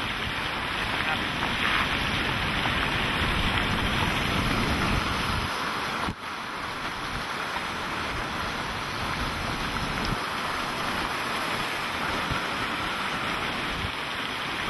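Hurricane wind and rain buffeting a moving vehicle, heard from inside: a steady, dense rushing noise with wind hitting the microphone. The sound drops out briefly about six seconds in.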